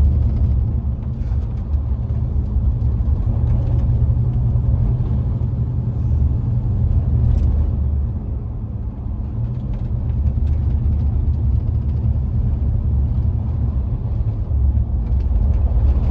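Steady low rumble of a vehicle's engine and road noise, heard from inside the cab while driving, easing slightly about eight or nine seconds in.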